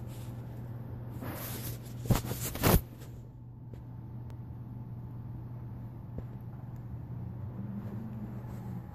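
Handling noise from a phone being moved about: loud rustling and rubbing between about one and three seconds in, then a few faint clicks, over a steady low hum.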